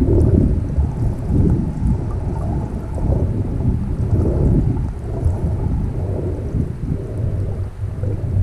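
Uneven, muffled low rumble of buffeting on a GoPro action camera's microphone, with no clear tones.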